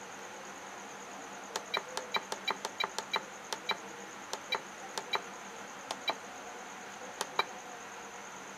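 Keys of a FlySky FS-i6X radio transmitter being pressed to scroll its menus: a quick, irregular series of about twenty short clicks, each with a brief high beep, many coming in quick pairs. A faint steady high whine runs underneath.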